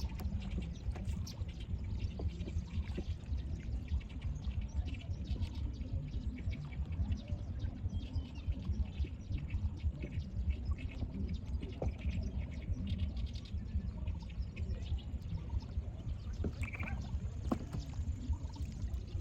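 Water splashing and trickling, many small crackling drips over a steady low rumble, with a short bird call about sixteen seconds in.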